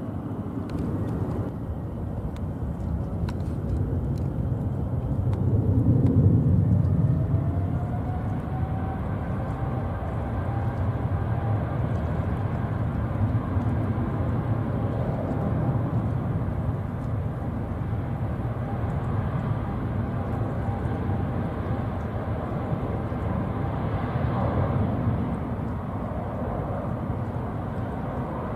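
Boeing 777-300ER's GE90 turbofans spooling up for the takeoff roll: a deep rumble that swells a few seconds in, with an engine whine that rises and then holds steady.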